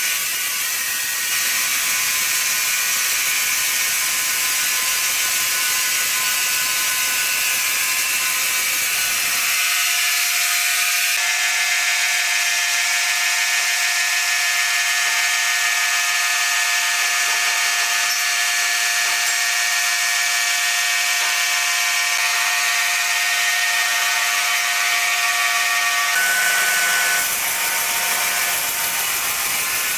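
Sawmill machinery running steadily, a saw whining with several held tones. The sound changes abruptly about ten seconds in and again near the end.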